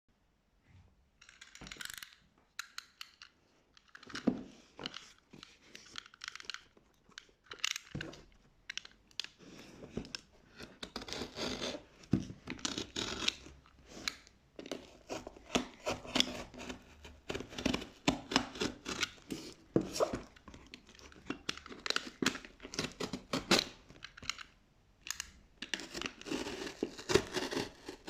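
Packaging being opened by hand: tape tearing and plastic and cardboard crinkling, in irregular bursts with small clicks and short pauses.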